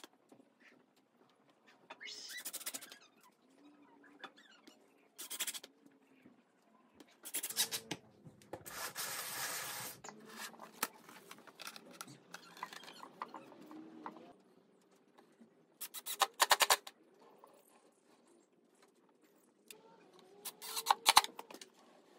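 AEG cordless drill-driver running in short bursts, each half a second to a second and a half, as it drives screws into the pine board and the lazy susan bearing plate. Quieter scrapes and knocks of wood being handled fall between the runs.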